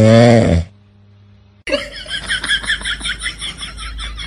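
A sleeping dog snoring: one loud, drawn-out, pitched snore that stops about half a second in. After a short lull, a rapid, evenly pulsed sound starts about halfway through.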